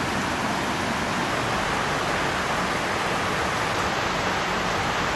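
Heavy rain pouring down onto concrete paving, a steady dense hiss.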